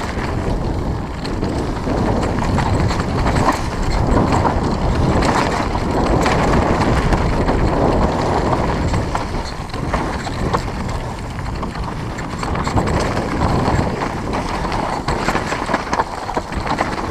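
Mountain bike descending a rough dirt downhill trail at speed: a continuous rumble of tyres on loose dirt and rocks, with steady rattling and knocking from the bike over bumps.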